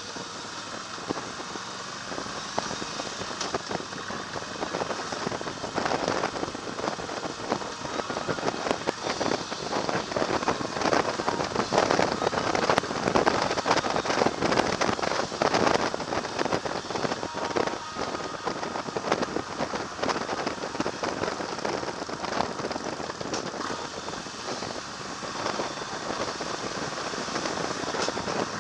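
Wind rush and buffeting on the microphone of a camera riding on a moving motorcycle, with road and traffic noise, crackling throughout. It grows louder through the middle, as the bike picks up speed, then eases a little.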